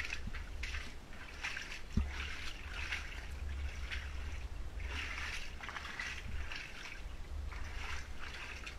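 Wellington boots wading through shallow floodwater: irregular splashing and sloshing, one step after another. Under it runs a low rumble of the camera being handled, and there is a single sharp knock about two seconds in.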